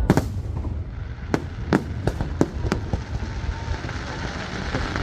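Aerial fireworks bursting overhead: a run of sharp bangs, several in the first three seconds and another at the very end, over a steady hiss.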